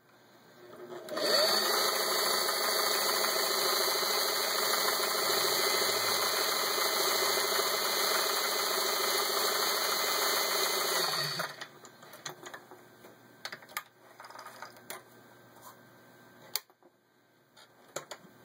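Singer 403A sewing machine running at speed, stitching a decorative cam pattern (the ball stitch) through fabric. It winds up about a second in, runs steadily for about ten seconds, then stops, and a few light clicks follow.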